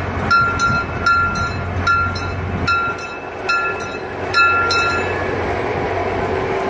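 A bell rings with quick, even strikes, about two to three a second, and stops about five seconds in, over the steady rumble of a small narrow-gauge tourist train rolling along.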